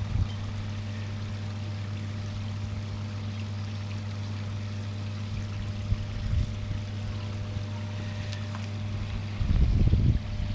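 Koi pond water running over its waterfall weir, with a steady low electrical hum from the pond's pump and filter equipment. Near the end there are a few louder low bumps and rumbles.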